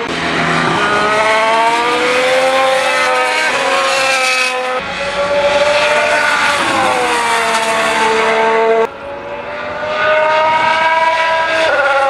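Alfa Romeo C39 Formula 1 car's 1.6-litre turbocharged V6 hybrid engine running at speed, its pitch rising and falling as the car accelerates and slows through corners. The engine note changes abruptly twice in the middle, where the footage cuts.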